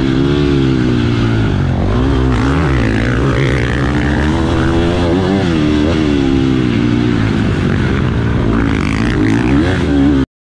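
KTM motocross bike's engine heard from on board while riding a dirt track, its pitch rising and falling over and over with the throttle and gear changes. The sound cuts off suddenly near the end.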